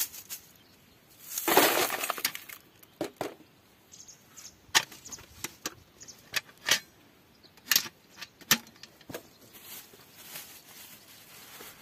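Wood ash being sifted in a metal mesh strainer: a short rustling rattle about a second and a half in, then a string of sharp clinks and knocks as the strainer is knocked and tipped out over a plastic bowl, with leftover nails and bits of charcoal dropping out.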